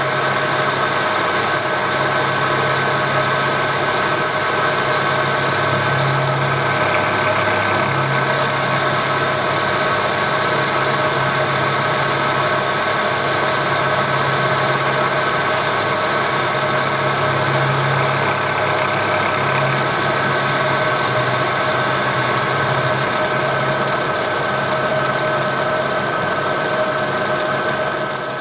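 Milling machine cutting metal with a fine-pitch roughing end mill: a loud, steady machining whine with several high tones over a low hum.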